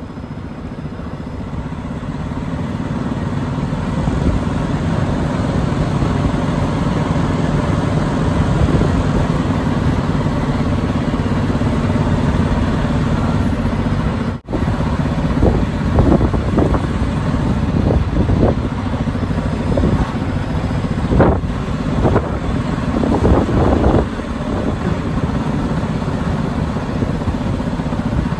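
Semi-truck diesel engine running with a steady low rumble while the rig turns slowly, growing louder over the first few seconds. A brief dropout comes about halfway, then several short louder bursts of noise over the engine.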